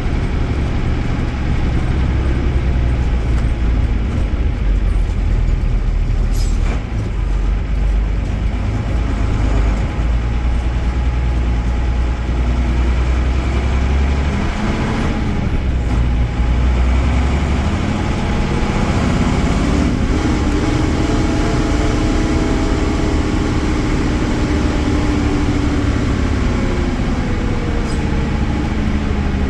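Mercedes-Benz OM-366A inline-six turbodiesel of an OF-1318 bus running under way with a steady low rumble. Its pitch rises and falls about halfway through, then climbs and eases off again in one long arch through the second half, as the bus accelerates and lets off.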